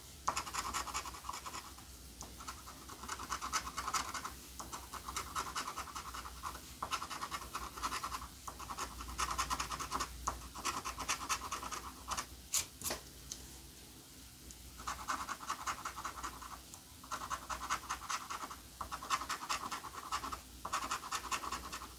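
A coin held on edge scratching the coating off a scratch-off lottery ticket in fast, rasping strokes. The scratching comes in runs of a few seconds with short pauses between, and a longer pause about halfway through that holds a couple of sharp clicks.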